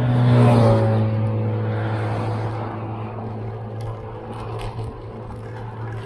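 Highway traffic passing close: a light truck's engine hum peaks and drops slightly in pitch as it goes by just after the start, then fades to a steady drone of traffic and tyres while a heavy truck approaches.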